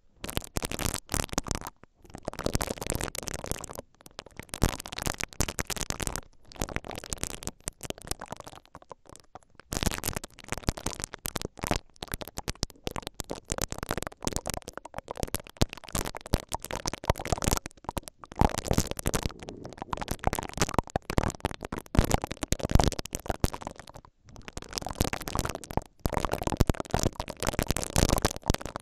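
Two spiky silicone ear-pick brushes rubbing against the metal mesh grilles of a stereo recorder's microphones. Close, crackly scratching and rustling comes in strokes, broken by a few short pauses.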